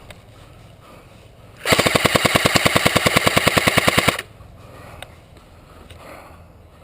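Airsoft rifle firing one rapid full-auto burst of about two and a half seconds, starting nearly two seconds in, with evenly spaced shots.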